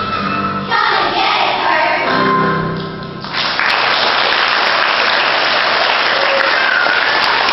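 The last notes of a sung song end about three seconds in, and an audience breaks into steady applause.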